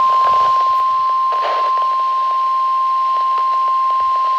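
NOAA Weather Radio warning alarm tone, a single steady 1050 Hz tone sounding without a break, over radio reception hiss with light crackles. The tone signals that a warning broadcast follows, here a tornado warning.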